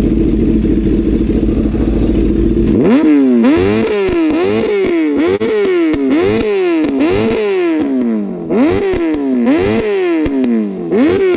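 Kawasaki ZX10R's inline-four, fitted with an Arrow slip-on exhaust, idling and then, about three seconds in, revved hard in quick repeated blips, each rising sharply and dropping back, with a brief pause partway through. Really loud.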